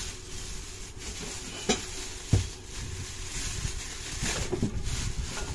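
Thin plastic bag rustling and crinkling as it is handled, with two short knocks about two seconds in.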